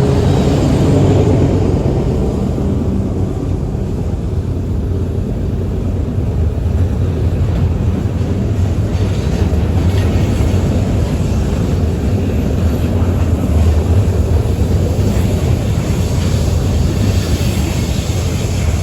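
Ferromex diesel train running with a steady low rumble; a horn note trails off in the first second or two.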